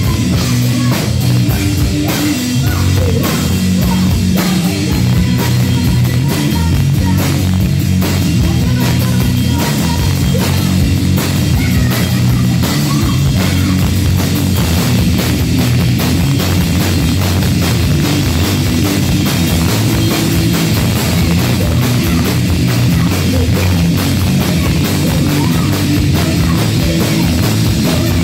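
Live rock music, played loud and without a break: an electric guitar over a drum kit hit in a dense, steady beat with cymbals.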